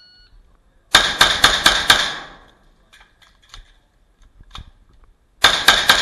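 A shot timer beeps briefly, then a string of five rapid gunshots about a quarter second apart, and near the end a second fast string of shots begins.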